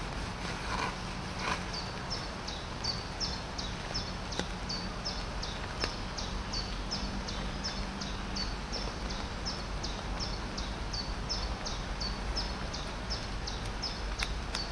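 A bird calling over and over with a short, high note that falls in pitch, about two or three times a second, over the steady patter of light rain in woodland. A couple of brief splashes of washing-up water come early on.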